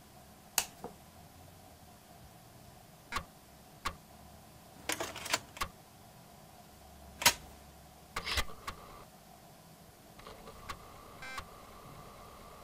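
Plastic clicks and short scraping rattles as a switch is pressed and a 3.5-inch floppy disk is pushed into a Commodore Amiga's disk drive, with one sharp click as the disk seats. Near the end the drive starts up with a faint whine and light ticking of the read head.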